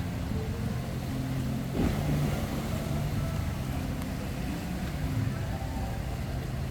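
Boat engine running steadily, a low hum with a brief rush of noise about two seconds in.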